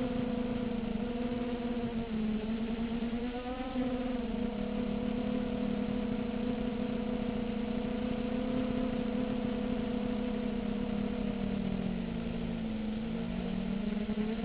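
Electric motors and 5-inch propellers of a 250-size FPV quadcopter whining steadily in flight, the pitch rising briefly about three and a half seconds in and dipping near the end as the throttle changes.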